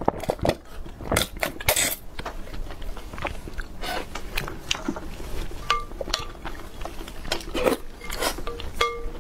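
Wooden spoon knocking and scraping in a glass bowl of milk tea with tapioca pearls, with a few short ringing clinks from the glass, amid chewing and sipping sounds.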